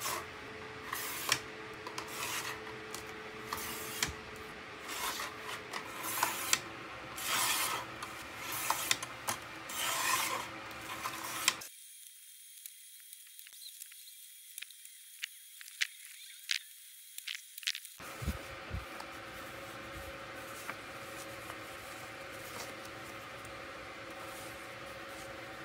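A sliding paper trimmer cutting photo prints: the cutter rasps along its rail in short strokes, and the paper rustles and scrapes on the desk. Through the middle the sound turns thin and faint, with only light clicks, and near the end there is occasional quiet paper handling over a faint steady hum.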